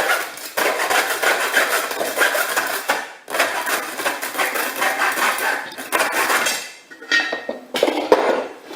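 Hacksaw sawing through a car tyre on a steel wheel: a steady scratchy rasp with brief pauses. It gives way to a few separate metallic knocks near the end.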